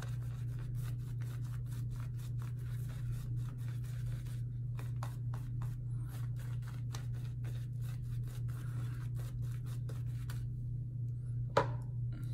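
Semogue 2000 boar-bristle shaving brush working lather over the face in a quick run of scratchy strokes, which stop a couple of seconds before the end. Then a single sharp click, the loudest sound. A steady low hum runs underneath.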